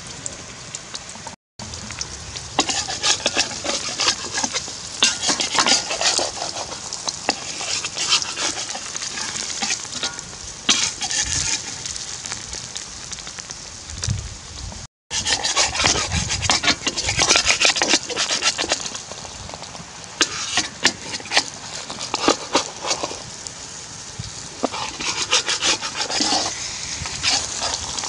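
Eggs with chopped chives and chilies sizzling as they fry in a steel wok, with a spatula scraping and tapping against the wok in quick irregular strokes. The sound cuts out for an instant twice.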